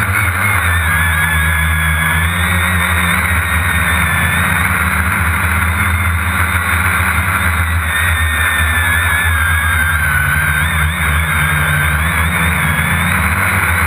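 Quadcopter drone's electric motors and propellers whining in flight, heard from its own onboard camera, with a steady low rumble beneath and the whine's pitch wavering up and down as the throttle changes.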